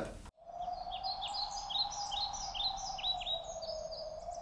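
Forest ambience of small birds singing: repeated short, falling chirps, two or three a second, over a steady hum. It starts abruptly about a third of a second in.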